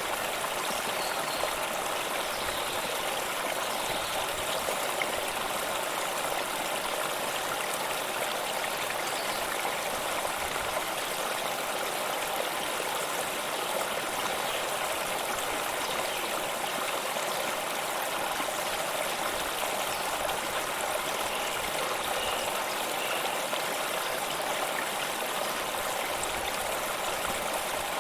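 Waterfall: steady rushing and splashing of falling water, unbroken and even.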